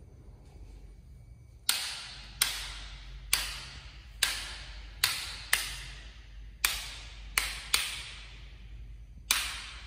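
Miniature circuit breakers in a house distribution board being snapped on one after another: about ten sharp clacks at uneven intervals, each with a brief fading hiss, over a faint hum.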